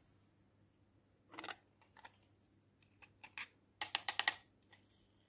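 Hard plastic clicks and taps from a star-shaped plastic container of slime toppings being handled, with a few scattered clicks and then a rapid run of sharp clicks about four seconds in as its lid is worked.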